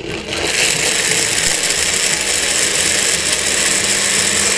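Countertop blender with a glass jar starting up and then running at a steady speed, blending soaked walnuts and water into walnut milk.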